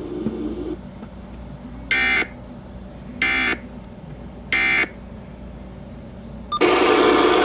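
Three short, identical bursts of Emergency Alert System digital data tones, evenly spaced a little over a second apart: the End of Message code that closes an EAS alert. Near the end, a louder continuous sound begins.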